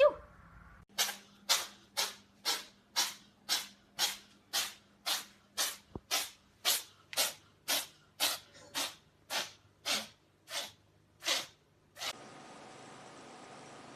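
A cat sneezing over and over in a rapid fit: about twenty short, sharp sneezes, roughly two a second, stopping near the end.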